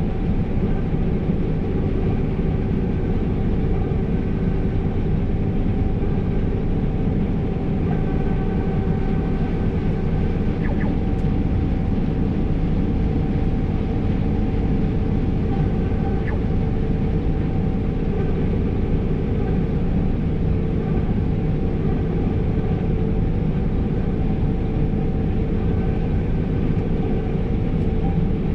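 New Holland CR 5.85 combine harvester running steadily while harvesting, heard from inside the cab: an even machinery drone with a steady whine over it.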